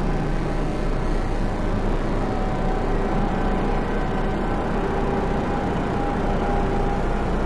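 Steady, dense electronic noise drone with a heavy low rumble, and a few faint held tones that fade in and out above it.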